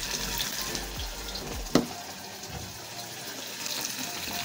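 A wooden spoon stirs maize flour into hot water in a stainless-steel pot, making wet, sloshing stirring noise: the early mixing stage of cooking ugali. There is a single sharp knock a little under two seconds in.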